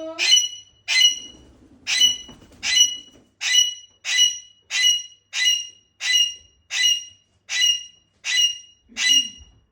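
A parrot screaming over and over, about thirteen loud, harsh, high calls at an even pace of a little more than one a second, each starting sharply and trailing off.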